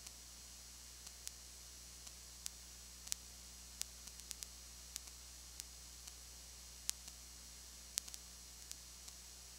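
Steady low hum and hiss with irregular sharp clicks, one or two a second: recording noise, with no sound from the game itself.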